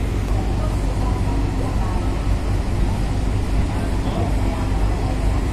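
Heavy truck's diesel engine running steadily as it drives down a ferry's vehicle ramp, a continuous low rumble.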